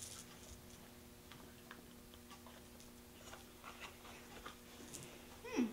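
Quiet room with a steady low hum and scattered faint clicks and rustles of people moving and handling a candy box, then a brief pitched vocal sound from a child near the end.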